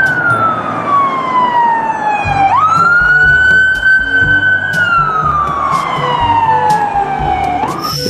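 Police car siren in a slow wail. The tone falls slowly, sweeps back up about two and a half seconds in, holds briefly, then falls again and starts to rise near the end.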